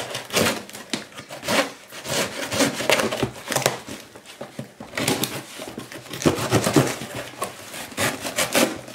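Packing tape being cut and torn off a cardboard box, with the cardboard scraping and rustling under the hands: a run of irregular scratchy rasps and rips.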